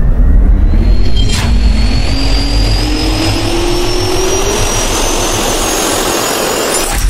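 Jet turbine spool-up sound effect: a rising whine over a steady rush of air and low rumble, with a sharp hit about a second and a half in and a low thump at the end.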